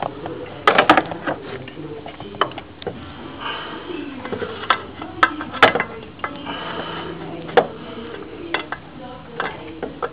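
Big pliers clinking and scraping on the timing-belt tensioner and its stiff spring of a Toyota 3S-FE engine while trying to pull the spring onto its hook. Irregular sharp metallic clicks: a quick cluster about a second in, then single ones every second or so.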